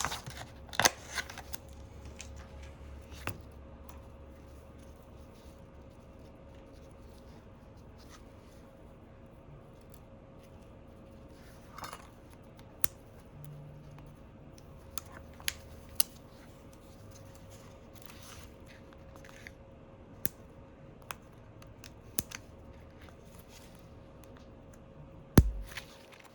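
Scattered small sharp clicks and taps of phone parts and small tools being handled on a workbench during an iPhone 12 screen replacement, one louder knock near the end, over a faint steady hum.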